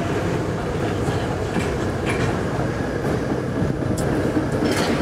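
Steady low rumble of vehicle traffic, with a few faint clicks.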